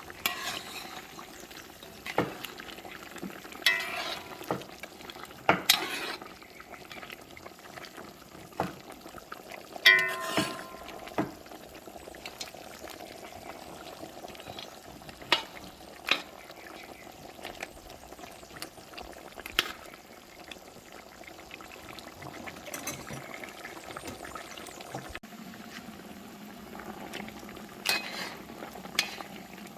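Pots simmering on the stove with a steady bubbling, broken by about fifteen scattered knocks and clinks of kitchen utensils; one clink about ten seconds in rings clearly.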